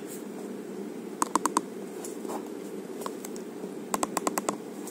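Keypad buttons of an itel feature phone pressed for multi-tap text entry, each press a short sharp click. A quick run of four comes about a second in, then a few single presses, then a faster run of about seven near the end.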